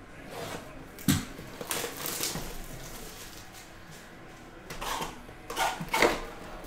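Sealed cardboard box of trading cards being unwrapped and handled: a sharp knock on the box about a second in, then crinkling of the plastic wrap and clicks and taps of cardboard, with a second cluster near the end.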